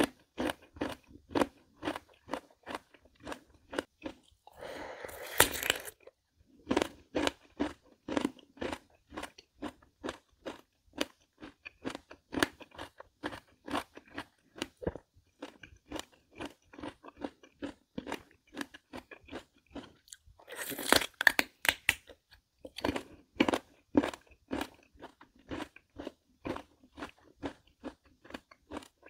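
Close-up crunchy chewing of crisp Korean melon (chamoe), about three crunches a second. Two longer, noisier moments come about five and twenty-one seconds in.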